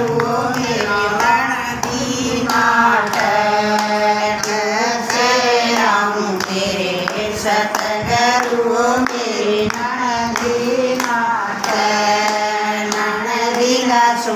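Group of women singing a Hindi devotional bhajan together, with hand claps keeping time.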